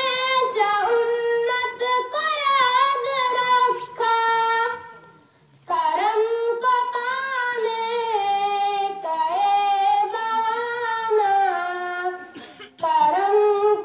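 A child's solo voice reciting a naat sharif, the Islamic devotional poem, in long melodic sung phrases with held, wavering notes. The singing pauses for breath about four and a half seconds in and again near the end.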